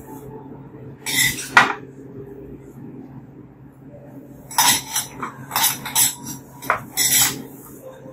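Metal slotted ladle scraping and clinking against a ceramic pot and a plate as braised pork and corn are scooped out. Two strokes come about a second in, then a quick run of them from about four and a half to seven seconds.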